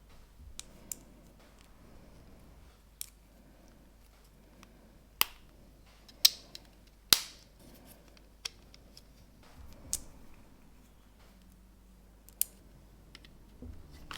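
Small plastic LEGO pieces clicking and snapping together as a model is built by hand: about ten sharp, irregular clicks, the loudest about seven seconds in.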